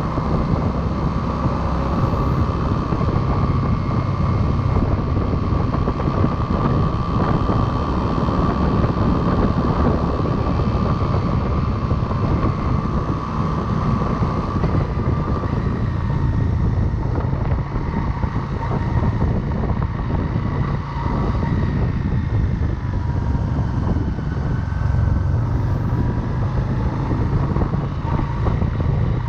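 Motorcycle riding at road speed, heard from the rider's chest: steady engine and wind noise, with a faint whine that shifts slightly in pitch in the second half.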